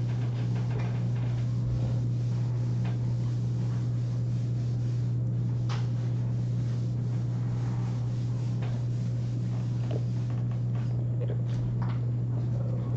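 A steady low hum, with faint scattered rubbing strokes of a whiteboard eraser wiping the board clean.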